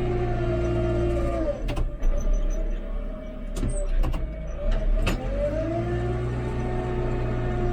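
JCB 3CX backhoe loader's diesel engine and hydraulics running, with a steady whine that drops in pitch about a second and a half in and climbs back up near the six-second mark. Several sharp knocks come in between.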